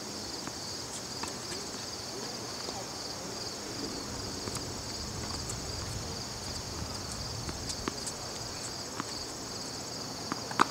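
Insect chorus from the surrounding woods: a steady, high, rapidly pulsing trill throughout, with a few faint scattered ticks and one sharper tap near the end.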